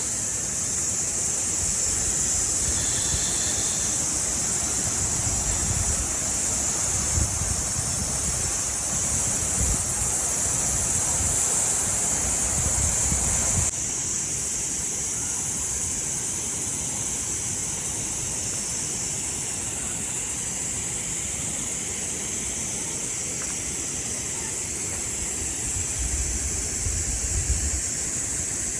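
Mountain stream rushing over rocks, a steady hiss of water, with wind buffeting the microphone in low rumbles at times. The water sound changes suddenly about halfway through.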